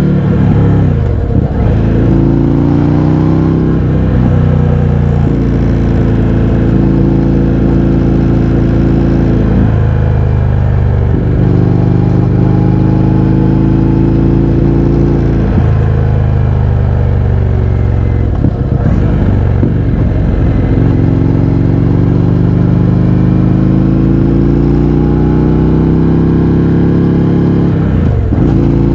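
Indian FTR 1200's V-twin engine through an Akrapovič exhaust with the baffles removed, heard on the moving bike under way. The engine pitch climbs steadily under throttle and is broken by several short sharp dips, as at gear changes or throttle lifts.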